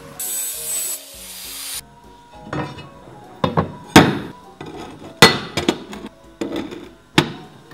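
Hammer blows on a steel sheet: about seven sharp, ringing knocks at irregular intervals of roughly a second, with a brief hiss near the start before them.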